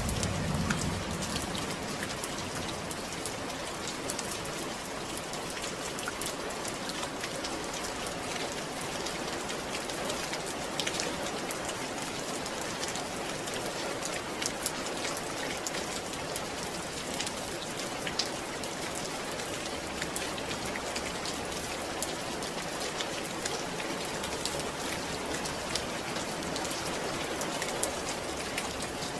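Steady rain falling, with many separate drops ticking close by. A low rumble dies away in the first second.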